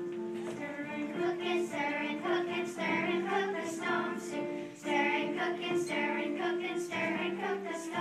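A group of children singing a song together.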